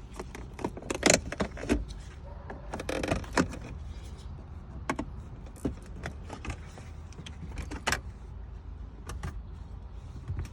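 Scattered clicks, knocks and a brief scrape of hard plastic interior trim being handled and pried loose around a car's gear shifter, over a steady low rumble.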